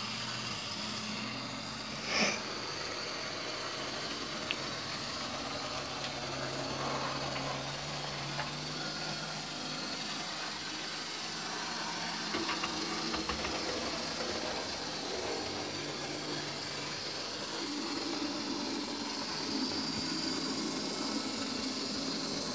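Model railway Class 47 diesel locomotive running slowly along the track: a steady low hum from its electric motor with a faint rolling noise. One sharp click about two seconds in.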